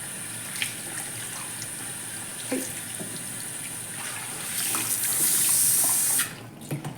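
Salon shampoo-bowl hand shower spraying water onto hair. The hiss gets louder about four and a half seconds in, then is shut off suddenly near the end.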